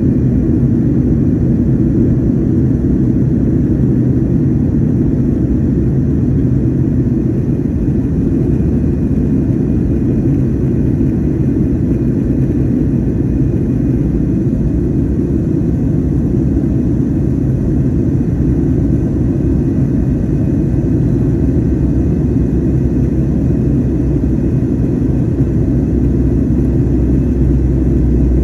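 Jet airliner cabin noise in cruise flight: the steady low rumble of the engines and airflow heard from a window seat.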